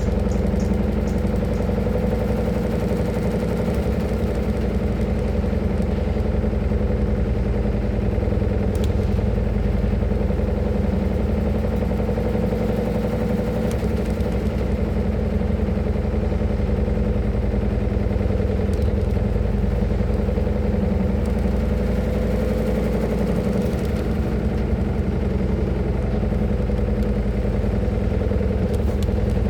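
Washing machine drum spinning at high speed in the spin cycle, a steady motor hum that holds an even pitch and level.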